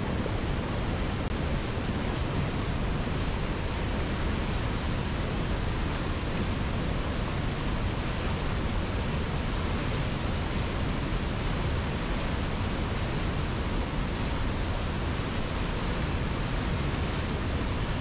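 Whitewater of a mountain river cascade rushing steadily over boulders, an even, unbroken wash of water noise.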